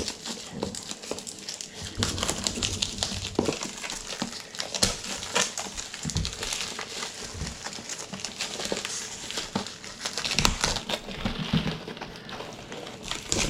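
Packaging being opened and handled: continuous crinkling and rustling, with many scattered clicks and light knocks.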